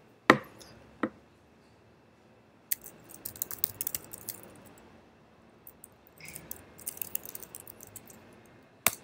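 Typing on a computer keyboard: two runs of quick key clicks in the middle, with a few louder single clicks near the start and near the end.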